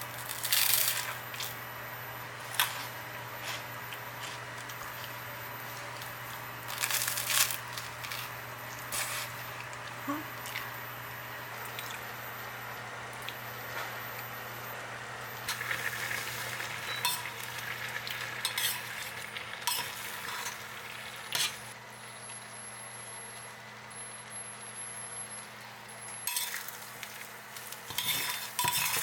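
Food frying in a pan with a steady sizzle, while a utensil stirs and clinks against the pan and dishes in irregular spells, the loudest about half a second in, around seven seconds, and near the end.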